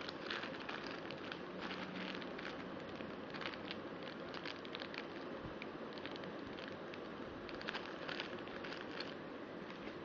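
Packaging crinkling and rustling as it is handled: irregular light crackles over a steady hiss.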